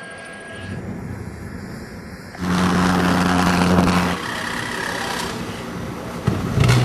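A motor or engine running with a steady low hum; it grows loud about two and a half seconds in, eases after about four seconds, and a short low hum returns near the end.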